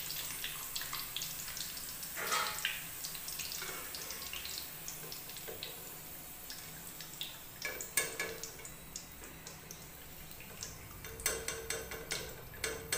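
Hot cooking oil in a karahi sizzling softly while fried potato chips are lifted out on a slotted skimmer, with oil dripping back into the pan. Scattered sharp pops and clicks sound throughout, one louder one past the middle and a quick cluster near the end.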